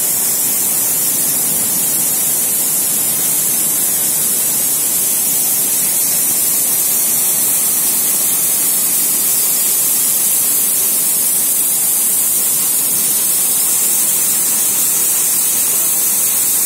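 Dust-suppression fogging nozzles spraying a fine water mist: a steady, loud hiss, brightest in the treble.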